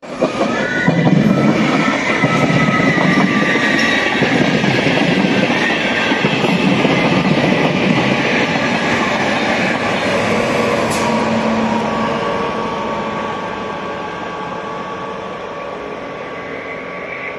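Passenger train of Intercity coaches passing at speed, its wheels rumbling and clattering over the rails with thin high squealing tones. The noise swells about half a second in and dies away over the last few seconds.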